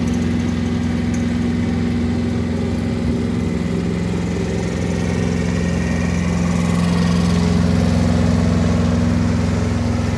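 Kubota ride-on mower's engine running steadily as the mower drives around, growing louder about seven seconds in as it comes close, then easing slightly near the end.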